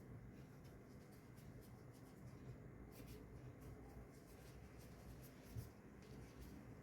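Near silence: low room hum with faint scattered ticks and light scratching.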